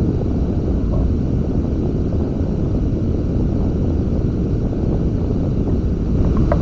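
Wind buffeting the microphone of an Insta360 ONE X2 camera aboard a sailing beach catamaran: a loud, steady low rumble.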